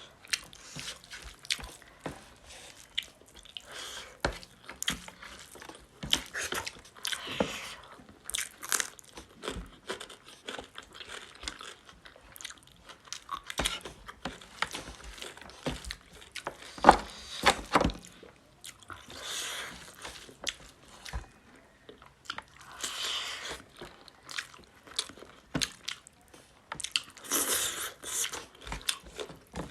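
Close-miked chewing and biting of fried pork with rayo saag and rice, with many short mouth and teeth clicks and a few longer stretches of noisy chewing about a second each.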